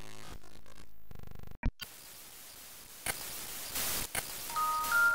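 Intro logo sound effects: a glitchy electronic buzz that turns into a fast stutter about a second in, a short sharp blip, then static hiss with a couple of swells, and bell-like chime tones coming in near the end.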